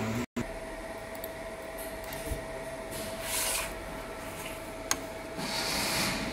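Steady hum with a thin constant tone from a fiber laser marking machine switched on. A steel ruler is handled over the work table, with a brief rustle about three seconds in, a sharp click about five seconds in, and another rustle near the end.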